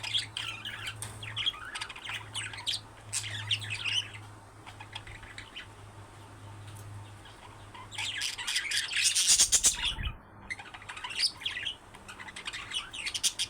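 Budgerigars chattering: many quick chirps and squawks overlapping, thinning out in the middle and picking up again, busiest about eight seconds in.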